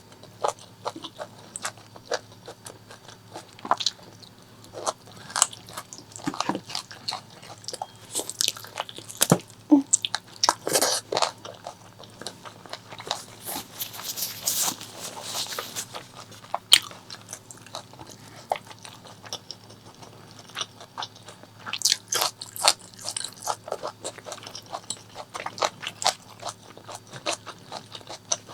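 Close-miked chewing and biting of spicy pork leg curry and rice: irregular wet mouth clicks and smacks with some crunching, denser and louder around the middle and again near the end.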